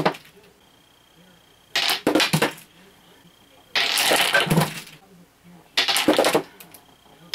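Mini candlepin bowling pins knocked over by a ball on a wooden lane, clattering against each other and the deck as they fall. Three separate bursts of clatter, about two seconds apart, each under a second long.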